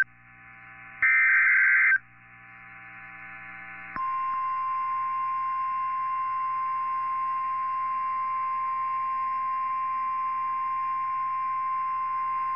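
Start of a NOAA Weather Radio alert: a one-second burst of the SAME digital header's harsh warbling data tones about a second in, a couple of seconds of faint radio hiss, then the single steady 1050 Hz warning alarm tone from about four seconds in.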